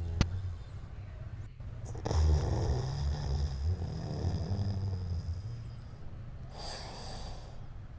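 Labrador retriever puppy snoring loud in deep sleep, a low snore that grows stronger for a few seconds about two seconds in. A single sharp click comes right at the start.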